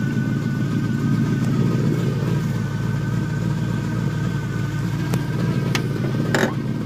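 A small-block Chevrolet V8 with a thumper cam idles steadily through dual exhaust with a choppy, lumpy low rumble. A few sharp clicks come near the end.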